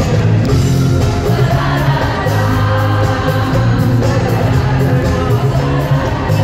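Live pop music played over an arena concert sound system, with a prominent bass line running under the instruments.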